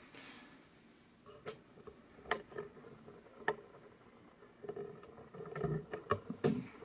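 A 2004 Casablanca Ventura II ceiling fan running very quietly on low speed, with scattered sharp clicks and light knocks that come more often in the second half.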